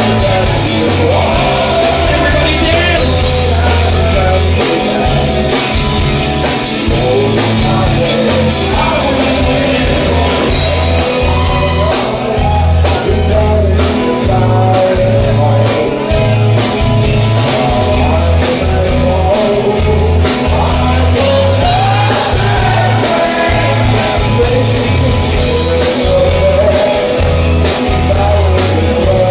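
Live dream-pop rock band playing, with a singing voice over a full band and a bass line moving between notes.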